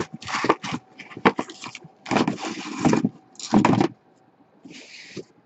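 Cardboard shipping case being opened and unpacked: a run of scraping, rustling strokes as the flaps are pushed back and the shrink-wrapped boxes are slid out against the cardboard, then a short softer scrape near the end.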